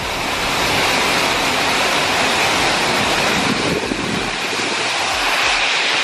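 Heavy rain and strong wind of a storm: a loud, steady rush.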